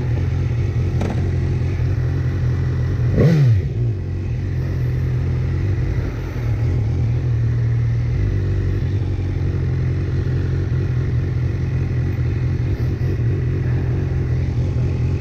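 BMW S1000R's inline-four engine running at low speed. About three seconds in comes a quick rev that drops straight back.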